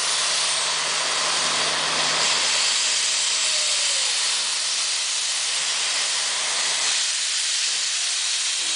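Steam locomotive hissing steam from its open cylinder drain cocks as it creeps forward: a loud, steady hiss.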